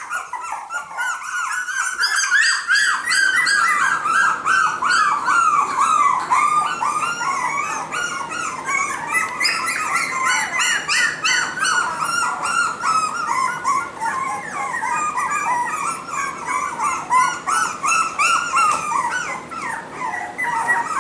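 Four-week-old cockapoo puppies yipping and whimpering, a steady stream of short high-pitched calls overlapping one another.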